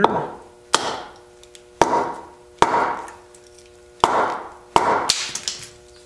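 Small hatchet chopping the corners off a freshly split billet of hard, wet locust wood held upright on a stump: about six sharp chops at uneven intervals, each trailing off briefly.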